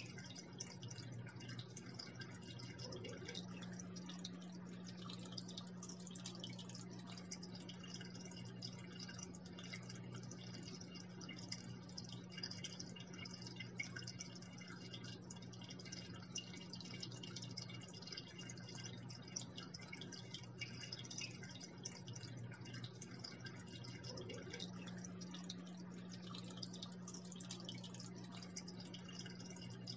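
Aquarium water trickling and splashing steadily, with a faint steady low hum underneath.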